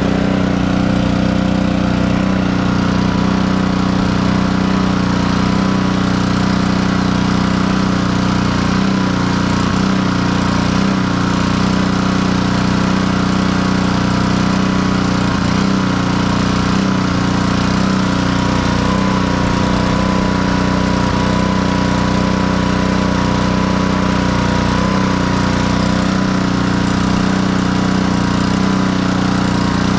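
Honda GCV160 single-cylinder four-stroke engine on a pressure washer running at a steady speed, freshly restarted after a carburettor repair.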